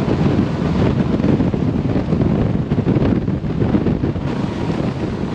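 Wind buffeting the microphone on a bass boat running at speed, over the steady drone of its Mercury 200 hp Pro XS four-stroke outboard and the hull on the water.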